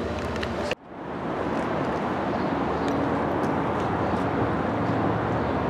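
Steady outdoor background noise, a continuous rush with a low hum. It cuts out sharply for a moment less than a second in, then returns.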